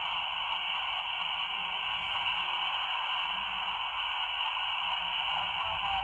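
A steady hiss like radio static, played back through a computer's speaker during a Sony Xperia ringtone.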